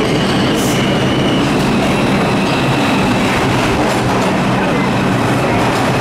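Bombardier R142 subway train arriving at the platform, its cars running past close by with a loud, steady rumble of wheels on rail. A faint high whine sounds in the first second and a half.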